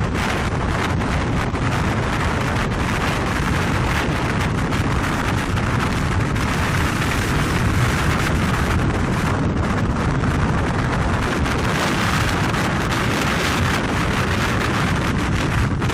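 Strong wind blasting across the microphone: a loud, steady rush with constant buffeting.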